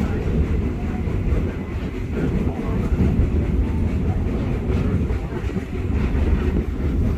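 Walt Disney World Railroad narrow-gauge steam train running along the track, heard from aboard a passenger car: a steady, continuous rumble of the cars on the rails.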